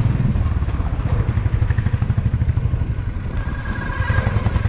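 Royal Enfield Bullet's single-cylinder engine running at low speed in traffic, with a steady, even pulsing beat.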